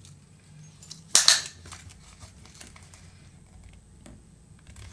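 Handling noise of a plastic-covered diamond painting canvas and a soft tape measure being laid across it: one sharp crackle about a second in, then faint rustles and light clicks.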